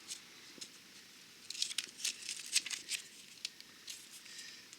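A dry-patch tyre repair kit's plastic and paper packaging being handled, crinkling in a run of quick crackles from about a second and a half in, with a few fainter ones near the end.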